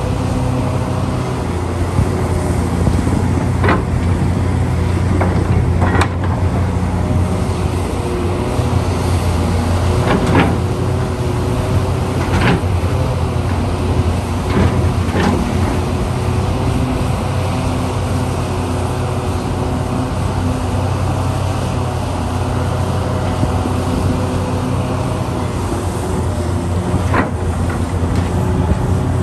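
Hitachi Zaxis 670 hydraulic excavator's diesel engine running steadily under digging load. Several sharp knocks and clanks break through as the bucket digs and dumps.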